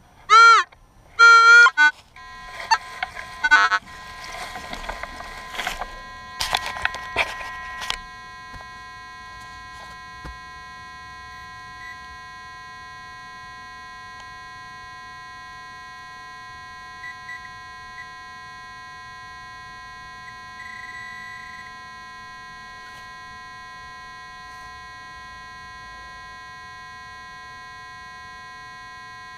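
Metal detector target tones: two loud warbling beeps in the first two seconds. Then scraping and a few knocks as a soil plug is dug and broken apart, and after that a steady electronic buzzing tone with several pitches that holds unchanged for the last twenty seconds.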